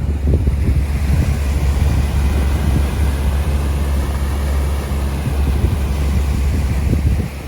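Pontoon boat's motor running steadily at cruising speed, a constant low hum, with wind gusting on the microphone.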